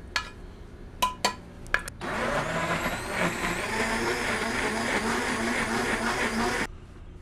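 Countertop blender puréeing seared zucchini and oil into a smooth cream. A few sharp knocks come first; about two seconds in the motor starts, its whine climbing as it gets up to speed, then runs steadily and cuts off suddenly near the end.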